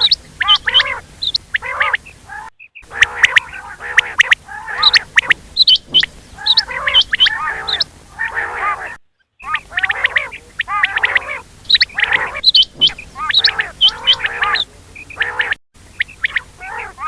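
Quail calling: dense runs of short, arched call notes repeated several times a second. The calling is broken by three brief silent gaps.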